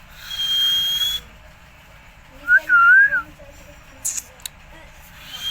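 A pet green parrot whistling: a held high whistle, then a lower wavering whistle that rises and falls, and another held high whistle near the end. A couple of short, sharp bursts come about four seconds in.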